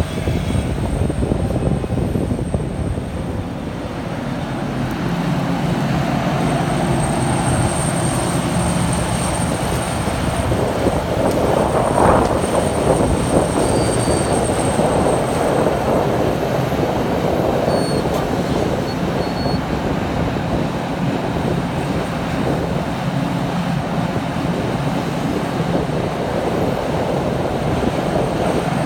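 Liebherr 974 hydraulic crawler excavator working: its diesel engine running steadily under load while the bucket digs soil and swings. About halfway through, a swell of rushing noise comes as the load pours into a dump truck's bed.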